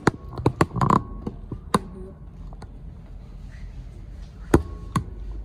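Scattered light taps and clicks of plastic action-figure parts and a toy spear being handled and set down on a desk. The taps come thickly for the first two seconds, then only now and then.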